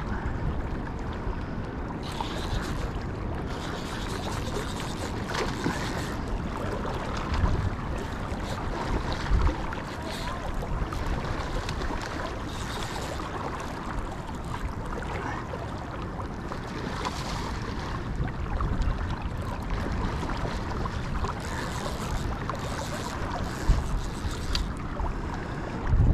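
Wind buffeting the microphone over the wash of shallow water, with gusts of hiss that come and go.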